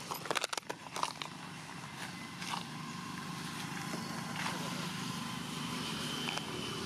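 A quick run of sharp crackles and clicks in the first second as macaques scramble over dry leaf litter and twigs, then a steady low hum with a faint thin tone above it.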